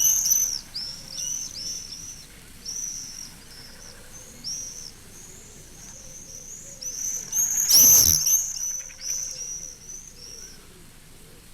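Common swifts screaming as they chase low overhead: many short, shrill, high screams in quick succession, with a louder rushing pass about eight seconds in, and the calls thin out near the end.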